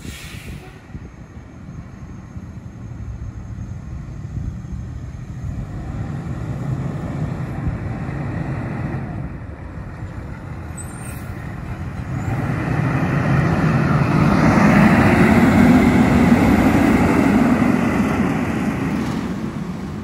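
Fire engine's diesel engine pulling away and accelerating, rising to a loud rumble about two-thirds of the way in, then easing off as it drives away.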